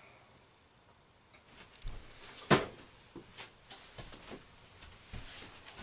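A string of knocks and clunks from pieces and tools being handled, irregular and about one every half second, with the loudest knock about two and a half seconds in.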